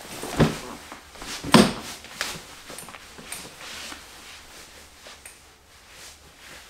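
A person sitting down in a folding camp chair: two thumps about a second apart, then a few fainter knocks and rustling as he settles.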